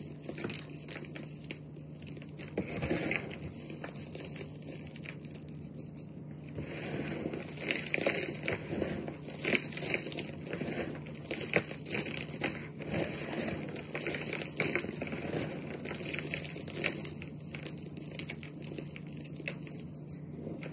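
Lumps of glitter-flecked reformed gym chalk crunching and crumbling as hands squeeze them, with a dense crisp crackle of breaking chunks and falling powder. It grows louder and busier about a third of the way in as the handfuls are worked harder.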